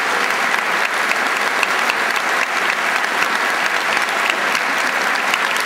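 Large crowd applauding steadily: a dense, even patter of many hands clapping.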